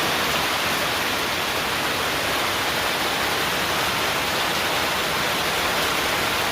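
Heavy rain pouring down, a steady even hiss that doesn't let up.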